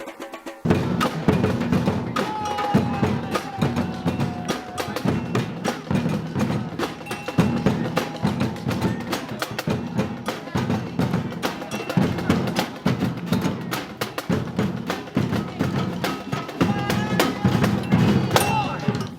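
Percussion band playing: drums pounding out a steady, driving rhythm, with sharp clicks and ringing tones layered over them. It starts abruptly about half a second in.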